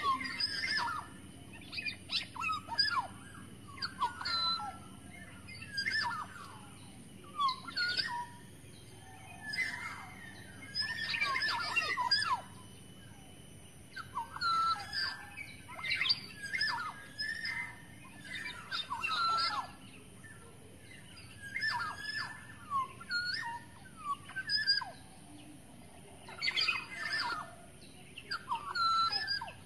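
Kepodang emas oriole calling over and over: short whistled and chirping notes in bursts every second or two.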